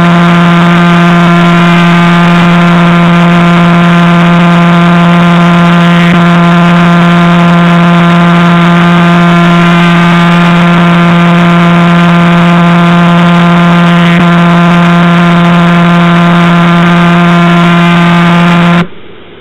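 A pulsar's radio signal converted into sound: a loud, unchanging low hum with many overtones. It drops away sharply just before the end.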